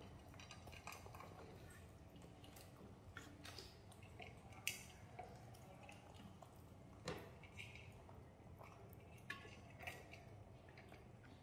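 Quiet room with faint, scattered clicks and taps from quail eggs and fingers on a plastic divided plate, and soft chewing from baby monkeys eating; the sharpest clicks come a little before five seconds in and about seven seconds in.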